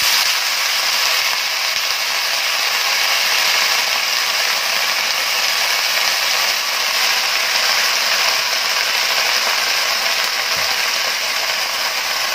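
Freshly washed chopped mustard greens, spinach, fenugreek and coriander sizzling loudly in hot oil in a kadhai: a steady frying hiss that holds at one level.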